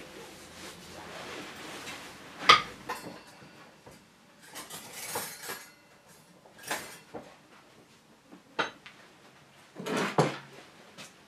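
Bolt cutters snapping through a stainless steel oven grill rod with one sharp crack about two and a half seconds in. Scattered metallic clinks and rattles follow as the wire rack and the tools are handled.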